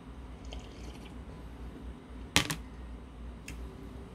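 A glass beer mug set down on a table: a sharp knock about halfway through, with a smaller one right after it, over a low steady hum.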